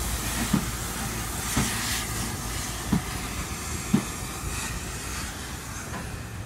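Passenger coaches rolling slowly past behind the departing LNER B12/3 4-6-0 steam locomotive No. 8572, their wheels thudding over rail joints about once a second, over a steady hiss of steam.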